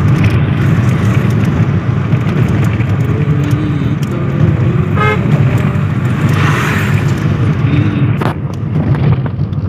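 Steady low rumble of a car's engine and tyres heard from inside the cabin while driving, with a short horn toot about halfway through and a single knock near the end.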